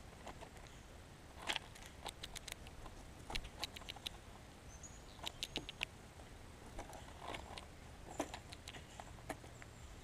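Blue jays pecking at a pile of birdseed on snow: scattered sharp taps, several coming in quick runs of three to five.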